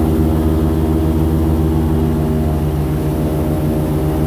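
Airboat's engine and large air propeller running at a steady cruising speed, an even, unbroken drone as the boat moves along the water.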